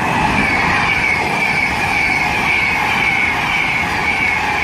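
Class 390 Pendolino electric train passing through the station: a loud, steady rush of wheel and air noise with a high whine that slowly falls in pitch.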